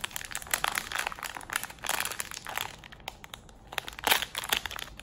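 Shiny pink foil blind-bag wrapper crinkling in quick bursts as it is pulled open by hand, easing off briefly about three seconds in before more crinkling.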